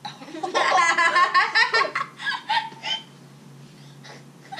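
A boy laughing hard in loud, choppy bursts that die down about three seconds in.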